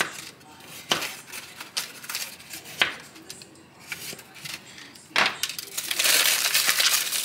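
Aluminium foil around a potato being handled: scattered sharp crackles and clicks while the potato is pricked with a knife, then dense crinkling from about six seconds in as the foil is folded shut.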